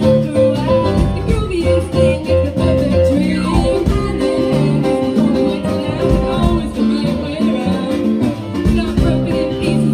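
Live band music: electric bass guitar and keyboard playing a steady rhythmic part under girls' voices singing.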